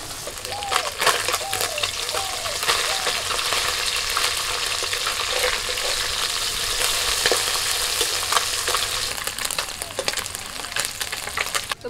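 Small mola fish sizzling and crackling as they fry in hot mustard oil in a metal kadai, with a metal spatula stirring and scraping them around the pan.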